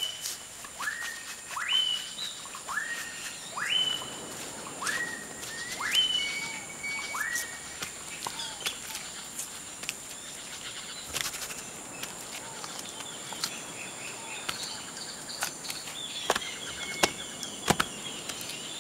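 Tropical forest ambience: a bird repeats a short whistle that sweeps upward, about once a second, for the first half, over a steady high-pitched hum. Later come a faster twittering series and a few sharp clicks.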